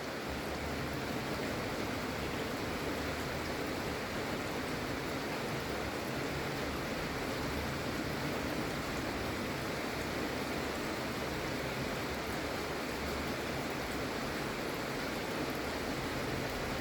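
Gentle rain falling steadily, an even hiss with no pauses.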